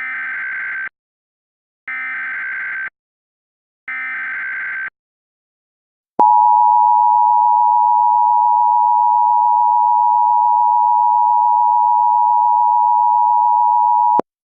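Emergency Alert System tones: the SAME digital header plays as three short bursts of data tones, each about a second long and a second apart. About a second later the two-tone attention signal (853 and 960 Hz) sounds steadily for about eight seconds and cuts off. Together they announce a Child Abduction Emergency (Amber Alert) broadcast.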